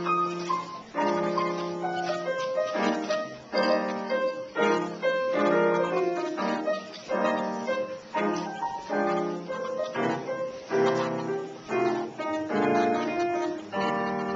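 Grand piano played solo, a piece moving through a series of struck chords and short phrases, each sounded note ringing before the next.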